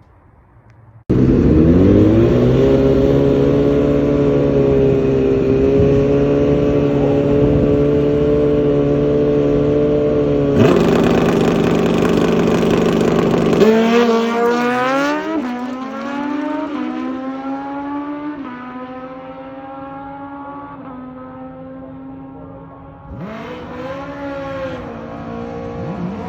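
High-revving motorcycle engine that starts abruptly and holds a steady, slightly rising pitch for about twelve seconds. Its pitch then drops and falls away in several downward glides. A fresh rise in revs comes near the end.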